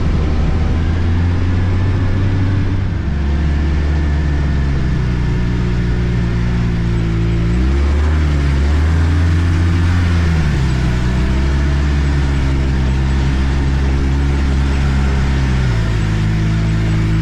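Arctic Cat F1100 turbo snowmobile engine running while riding, its pitch shifting with the throttle. It rises about eight seconds in, falls back a couple of seconds later and drops again near the end.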